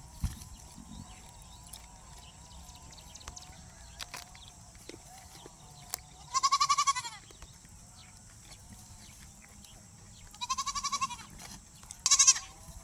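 Bleating livestock: three loud, quavering bleats, the first two about a second long and the last shorter, near the end. A short low thump comes just after the start.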